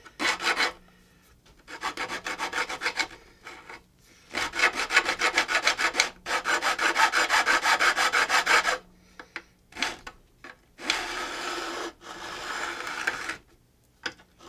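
A file drawn in repeated long strokes along the edge of a guitar fingerboard, dressing the freshly nipped-off fret ends down flush with the wood. Each stroke is a rasp with a rapid, even ticking; the last few strokes are lighter.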